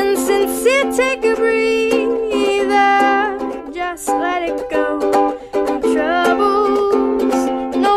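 Ukulele playing a song, with a voice singing wordless lines over it.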